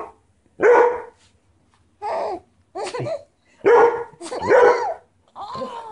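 A baby laughing hard in short repeated bursts, mixed with a dog barking.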